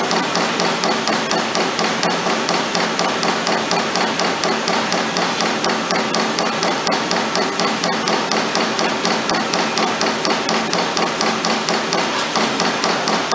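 Trumpf Trumatic 2020R 22-ton CNC turret punch punching sheet metal: a rapid, even run of punch strokes, roughly three to four hits a second.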